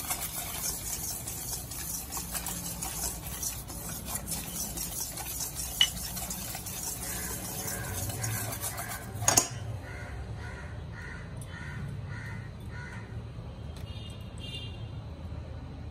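A wire whisk stirring dry gram flour and semolina in a stainless steel bowl: a scratchy rustle with light ticks of metal on the bowl, ending with a clink about nine seconds in. After that there is a run of short repeated calls in the background.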